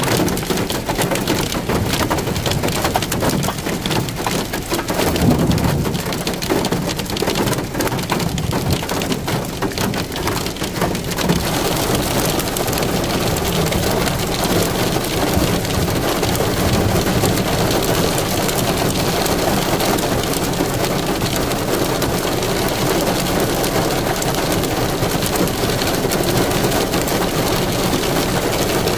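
Rain falling: for about the first ten seconds a dense patter of drops striking a surface close by, then an even, steady hiss.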